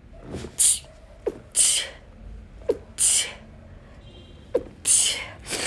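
A person having a sneezing fit: four or five sneezes in quick succession, about a second and a half apart, each preceded by a short, sharp intake of breath.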